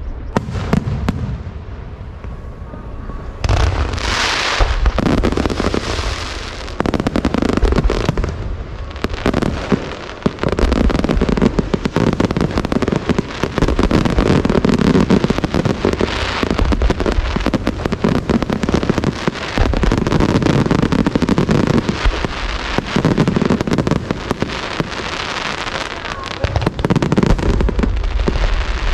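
Aerial fireworks going off in rapid succession: dense crackling over repeated deep booms of shells bursting.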